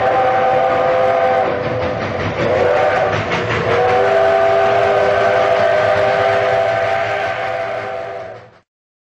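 Steam locomotive chime whistle blowing two long blasts, each sliding up into its chord, over the noise of the running train. The second blast is the longer, and the sound cuts off shortly before the end.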